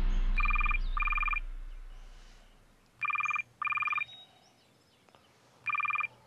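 Electronic telephone ringing in a double-ring cadence: two short rings, a pause, repeated three times. A deep rumble fades away over the first couple of seconds, under the first pair of rings.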